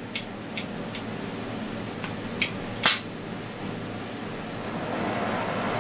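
Small-tipped oxy-acetylene torch heating steel: a steady hiss of the flame that swells a little about four and a half seconds in. A few sharp clicks and pops come in the first three seconds, the loudest near the three-second mark.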